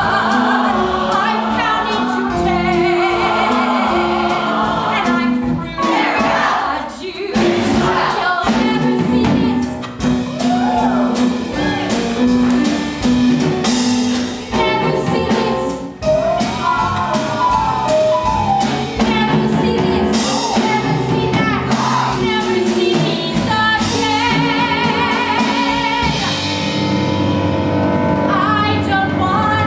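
A live band with a drum kit playing a Broadway-style show tune, with a lead singer and ensemble singing over it.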